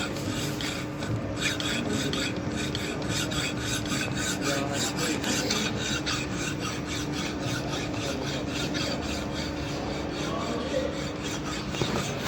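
Hand file rasping on metal in quick, steady back-and-forth strokes.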